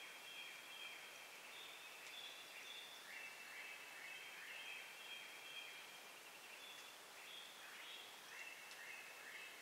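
Faint songbird singing in repeated phrases of short, high, stepped notes over quiet woodland background.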